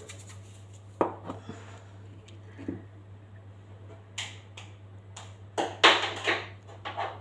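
A series of light knocks and clatters from kitchen containers and utensils being handled while seasoning chicken, loudest as a cluster of knocks about six seconds in.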